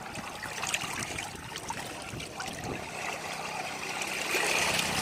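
Seawater washing and trickling along a beach shore. A low steady hum joins about three seconds in.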